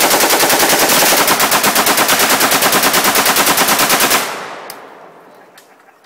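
AK rifle firing one long fully automatic burst, about ten shots a second, that stops about four seconds in, its echo dying away over the next second or so.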